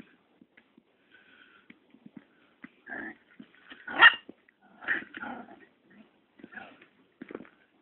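Chihuahua puppies play-fighting, giving a run of short yips and growls, the loudest about four seconds in.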